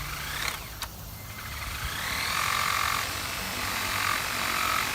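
ROCKPALS cordless pressure washer starting up with a rising whine, then spraying: a hiss of water over a steady motor whine that grows louder about two seconds in.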